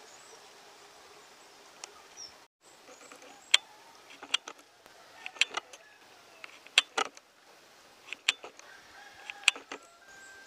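Short, sharp bird calls every second or so over faint steady outdoor background noise.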